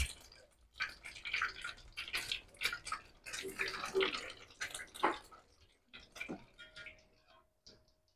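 Potato patties (bergedil) frying in hot oil in a wok: an irregular sizzling crackle as patties are dropped in. It thins out into scattered crackles near the end.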